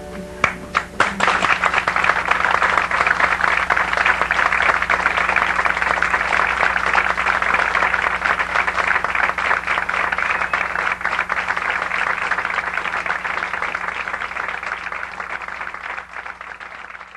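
Audience applauding: a few first claps, swelling within a couple of seconds into sustained applause that tapers off near the end.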